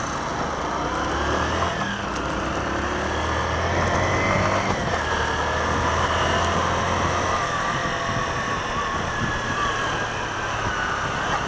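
Motorcycle engine pulling away from a stop and accelerating through the gears: its pitch climbs, drops at a gear change about two seconds in and again about five seconds in, then settles into a steadier cruise. Wind and street traffic noise run underneath.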